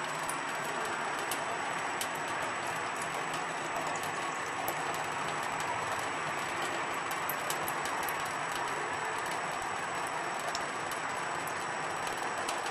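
Thin stream of tap water running steadily into a stainless steel sink, with scattered light ticks on top.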